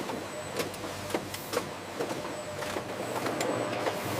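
Production-line machinery running with a steady low hum and irregular sharp mechanical clicks.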